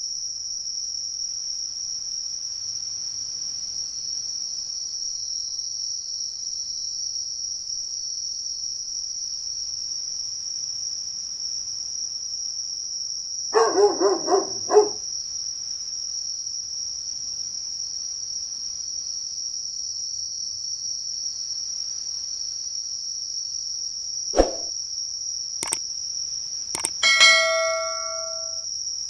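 A steady, high-pitched insect drone, with a short run of dog barks about halfway through. Near the end come a few sharp clicks and a bell-like chime, a subscribe-button sound effect.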